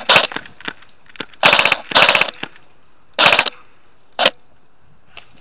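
Airsoft guns firing short automatic bursts, each a quick rattle of a fraction of a second: one at the start, two back to back around a second and a half in, another a little past three seconds, then a single shot just after four seconds.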